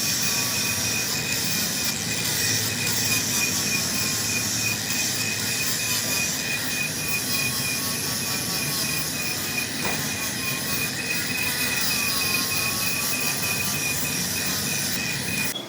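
Steel crankshaft being machined, most likely turned on a lathe, with a steady high-pitched squeal over the cutting noise; the sound changes abruptly near the end.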